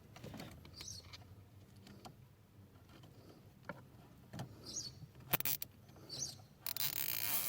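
Plastic cable ties and wiring being handled under a car's dashboard: scattered small clicks and rustling, a couple of sharp clicks, then about a second of rapid rasping near the end as a zip tie is pulled tight through its ratchet.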